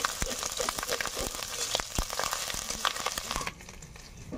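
Onions, green chillies and goat offal sizzling in hot oil in an iron kadai, stirred with a flat metal spatula that scrapes and clinks against the pan. The sizzling cuts off abruptly near the end.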